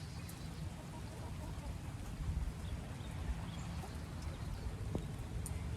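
Rain falling, a steady hiss with scattered light ticks of drops, over a low rumble.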